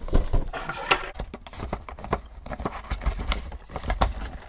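Cardboard Funko Pop box being handled and opened: irregular scrapes and clicks of the cardboard, with low knocks as the box is turned and set down.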